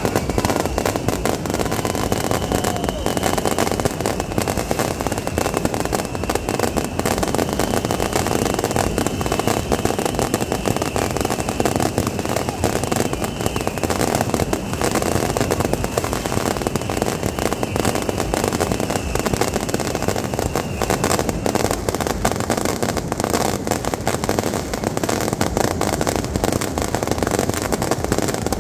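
Massed beehive rockets and firecrackers going off in a dense, unbroken crackle. A thin high whine runs underneath until about two-thirds of the way through.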